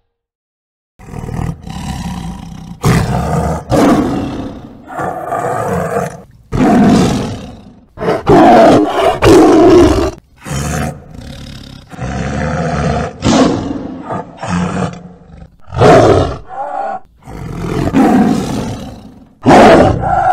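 Tiger roaring: a long series of loud roars, each about a second long with short breaks between them, starting about a second in.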